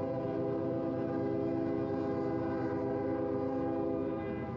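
Locomotive air horn sounding one long, steady chord-like blast over the rumble of the train, warning at a road crossing. The blast cuts off shortly before the end.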